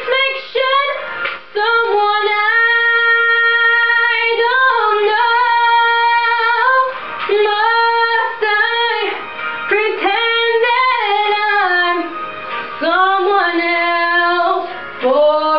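A woman singing a ballad solo, holding long, steady notes with brief breaths between phrases.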